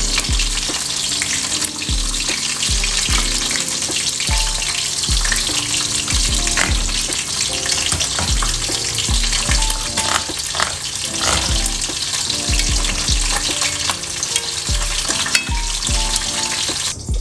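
Tomato and vegetable sauce sizzling in a pot on a gas stove, stirred with a metal ladle. Background music with a steady low beat plays underneath.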